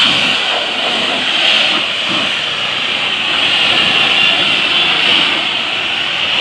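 170-bar high-pressure washer spraying, its water jet giving a loud, steady hiss.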